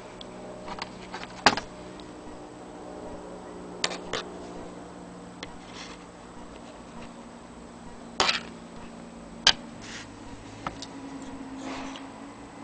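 A few scattered sharp metallic clicks and knocks as an antique Willcox & Gibbs sewing machine is handled, over a faint steady hum. The loudest click comes about a second and a half in, with others around four, eight and nine and a half seconds.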